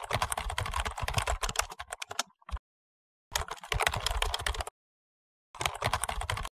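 Computer keyboard typing sound effect laid over text appearing on screen: three runs of rapid key clicks, the first about two and a half seconds long, the second about a second and a half, the last about a second, with silent gaps between.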